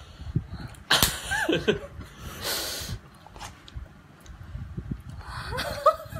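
Wordless vocalizing and laughter: a sudden loud burst of voice with sliding pitch about a second in, a breathy hiss a little later, and more gliding vocal sounds near the end, over a low rumble.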